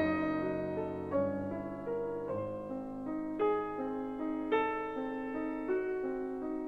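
Slow solo piano background music, one struck note or chord about every second, each left to ring.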